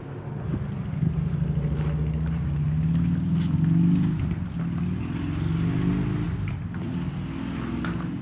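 An engine running, its pitch and loudness rising to a peak about four seconds in and then easing back.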